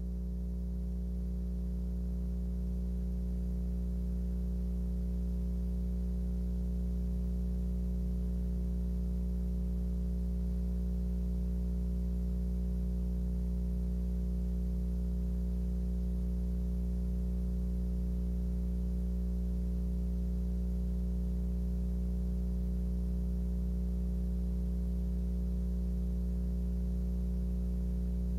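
A steady electrical hum and buzz on the audio feed: several low tones held at an unchanging pitch and level throughout.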